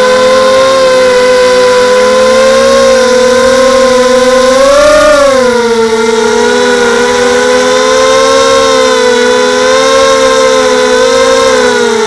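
Mini FPV quadcopter's brushless motors and propellers whining in flight, heard from the onboard camera; the steady multi-tone whine rises in pitch briefly about halfway through as the throttle is pushed, then eases back.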